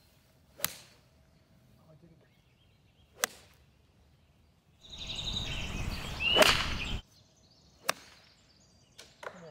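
Golf clubs striking balls off the tee: four sharp single cracks a couple of seconds apart, each with a short tail. The loudest comes in the middle, inside a couple of seconds of wind noise.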